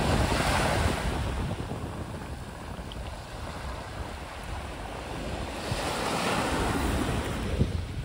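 Small sea waves breaking and washing up a pebbly beach, the surf swelling twice, once at the start and again about six seconds in. Wind rumbles on the microphone underneath.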